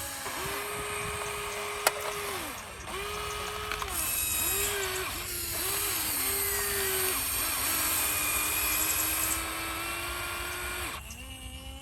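Small electric motors of a radio-controlled construction model whining in short runs, the pitch climbing and dropping as each control is worked and released, with a sharp click about two seconds in.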